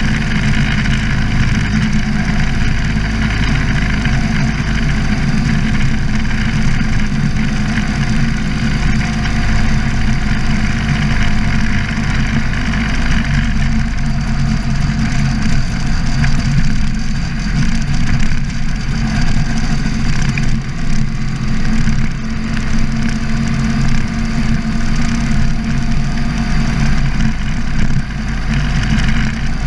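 Sidecar motorcycle's engine running steadily as it rides along the road.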